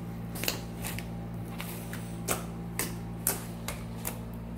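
Compound Kings fluffy slime being squished and pressed by hand, giving off irregular sharp pops and clicks as air pockets burst, over a steady low hum.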